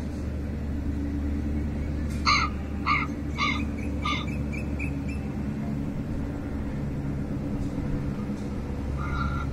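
Crow cawing: four harsh caws in quick succession about two seconds in, a few weaker ones after, and another caw starting near the end, over a steady low background rumble.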